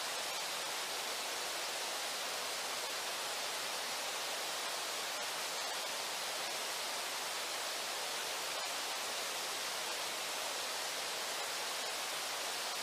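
Steady rush of the Brooks River's flowing water, an even hiss that does not change.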